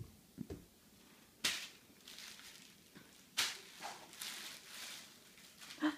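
Plastic bubble wrap crackling under a toddler's feet and hands: a sharp crackle about one and a half seconds in, another about three and a half seconds in, then softer crinkling.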